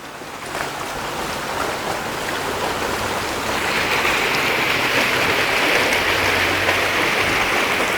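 Floodwater rushing down a flooded street like a stream, a steady rush of water that grows louder about three and a half seconds in.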